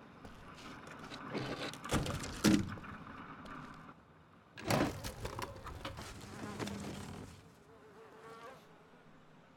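A buzzing like a fly, with sudden loud rustles or knocks about two seconds in and again just before five seconds.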